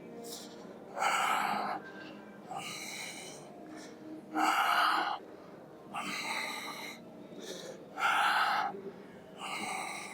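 A man breathing hard and rhythmically through a set of lifting reps, each loud forceful breath followed by a softer one between, about every three and a half seconds.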